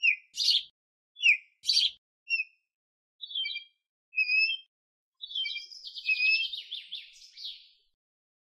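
Killdeer calling: two high, sharp calls in the first two seconds, then short scattered notes, and a rapid stuttering trill through the second half.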